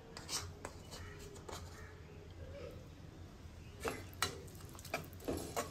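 Light clicks and knocks of a cooking utensil against a steel wok, scattered and irregular, with more of them near the end, over a low steady hum.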